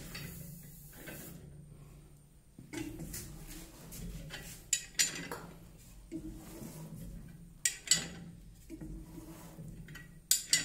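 Sharp metal clinks of a spanner and three-jaw bearing puller being worked on a 90 kW Siemens motor's shaft, coming in pairs a few seconds apart, the bearing stuck tight and coming off slowly. A WD-40 aerosol hisses for about the first second.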